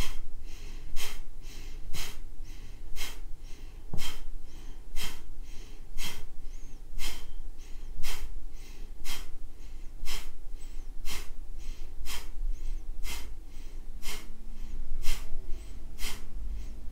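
Kapalabhati (breath of fire): short, forceful exhales pushed out through the nose at a steady rhythm of about two a second, with passive inhales between.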